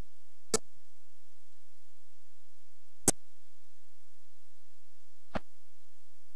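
Digital cable TV sound breaking up on a corrupted signal: the audio drops to a faint hiss with a thin high whine, broken by three sharp digital clicks about two and a half seconds apart.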